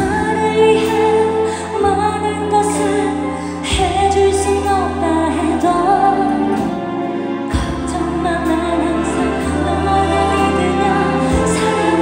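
A woman singing live into a handheld microphone over band accompaniment, with long held bass notes changing every couple of seconds beneath the vocal line.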